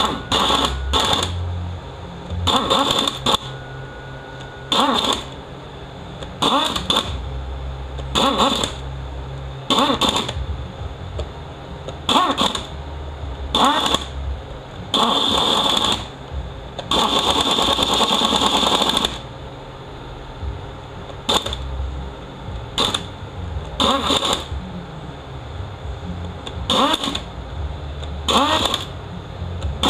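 Small cordless screwdriver driving the valve body bolts of a 68RFE transmission in from the center outward: short whirring runs every second or two, each a bolt being run down, with one longer run of about two seconds past the middle.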